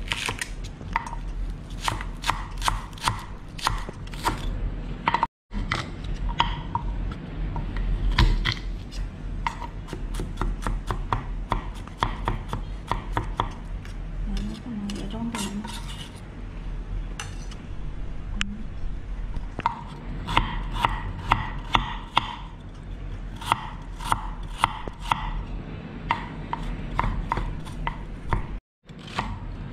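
Chef's knife chopping green onion, garlic and ginger on a thick wooden cutting board: quick runs of knife strikes against the wood, several a second, over a low steady hum.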